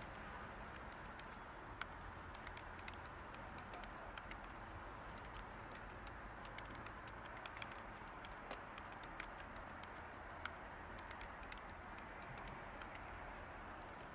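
Light computer-keyboard typing: scattered, irregular keystroke clicks over a steady background hiss of white noise.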